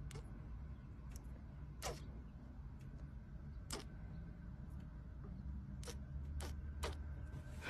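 Close-miked kissing sounds: about six sharp lip smacks, each dropping quickly in pitch, spaced a second or two apart, over a low steady rumble.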